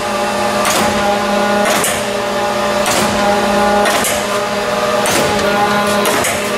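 Mattison surface grinder running: a steady motor hum with a brief swish repeating about once a second.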